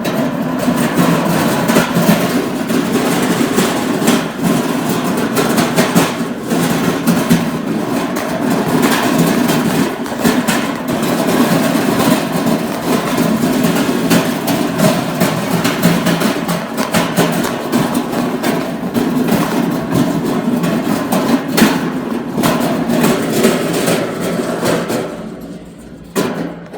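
Shopping cart being pushed, its wheels and wire basket rattling and grinding loudly with a steady drone and constant clatter. The noise dips for a moment near the end.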